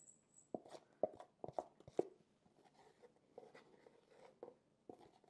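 Cocoa powder being tipped and tapped out of its canister into a measuring cup: several short sharp taps in the first two seconds, then soft scraping and rustling.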